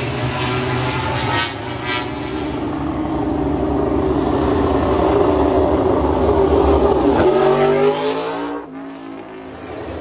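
MotoGP prototype motorcycle's inline-four engine at high revs, getting louder as the bike approaches. The pitch drops sharply as it passes, about seven seconds in.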